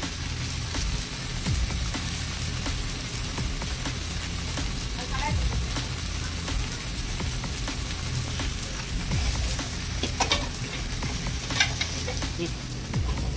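Greens with shallots and dried red chilli sizzling steadily as they sauté in an aluminium kadai on a gas stove. They are stirred with a perforated steel ladle, which clinks against the pan a few times near the end.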